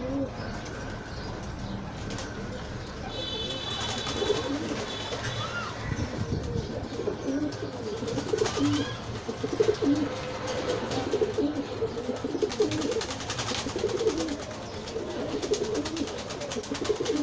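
Birds calling: many short, low cooing calls repeated throughout, with a brief higher-pitched call about three seconds in.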